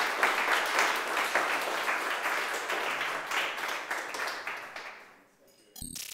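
An audience applauding, dying away about five seconds in. A short burst of sound follows right at the end.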